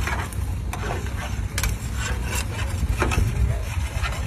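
Gang plow bottoms cutting through and turning over sod, giving an irregular crunching and scraping over a steady low rumble.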